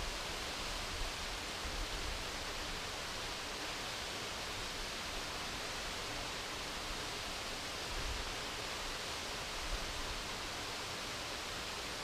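Steady rushing hiss of a waterfall, with a few brief low rumbles of wind on the microphone.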